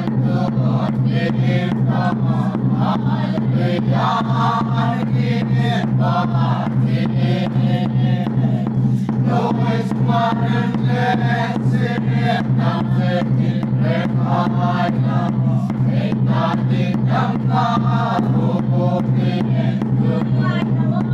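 A small congregation singing a hymn together, kept to a steady beat of sharp strikes, about two to three a second, over a steady low hum.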